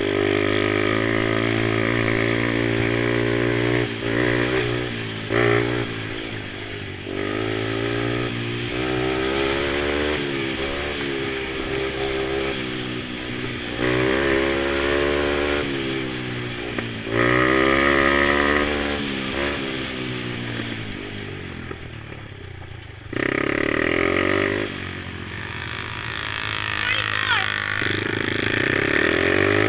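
Small mini quad engines racing, their pitch rising and falling over and over as they throttle on and off, with louder stretches several times as a quad passes close.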